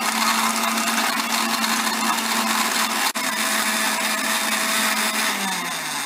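Electric countertop blender running at full speed, blending milk and ice, with a momentary break about three seconds in. Near the end it is switched off and the motor's pitch falls as it winds down.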